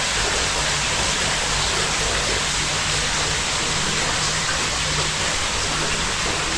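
Steady, even hiss of falling or running water, with no separate drops or splashes standing out.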